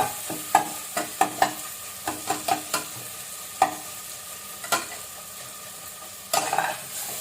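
A ladle knocking and scraping against a pan as it mashes sizzling tomatoes and onions, with sharp irregular knocks over a steady sizzle. The scraping gets louder a little after six seconds.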